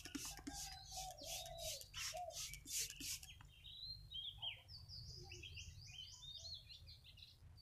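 Small birds calling: a fast series of sharp chirps, about three a second, for the first three seconds, then short runs of quick high whistled notes. A steady low rumble runs underneath.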